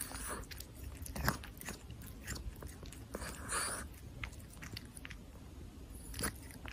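A cat chewing: faint, irregular clicks and crunches, with a short louder crunch about three and a half seconds in.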